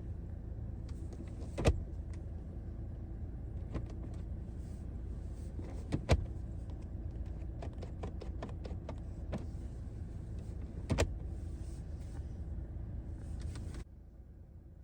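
Glovebox lid and latch of a Mercedes-Benz W212 being worked with its newly fitted lock, which now catches: three sharp latch clicks a few seconds apart with smaller clicks and rattles between, over a steady low hum that stops suddenly near the end.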